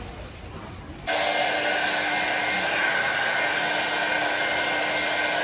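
A hair dryer running steadily: an even loud rush with a faint whine, cutting in abruptly about a second in after a moment of quieter background noise.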